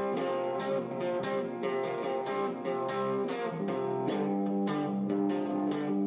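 Background music: guitar strummed in a steady, quick rhythm, with chords changing about four seconds in.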